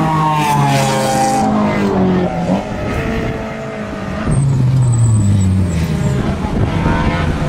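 Race car engines at full load passing close: the first engine's pitch falls over the first two seconds or so as the car goes by, then a second car's engine comes in about halfway through and drops in pitch. A thin high squeal is heard briefly near the middle.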